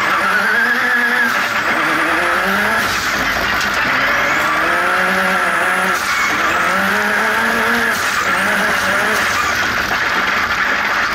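Turbocharged engine of an off-road racing buggy under hard acceleration, heard from inside the cockpit, its pitch climbing and dropping back every second or two over a constant rush of tyre and wind noise. The turbo is running on limp-home wastegate spring pressure only, well down on its full boost.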